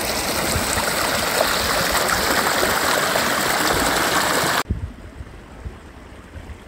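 Small moorland stream rushing and splashing over stones, a loud, even rush of water. It cuts off suddenly about four and a half seconds in, leaving only a quieter low rumble.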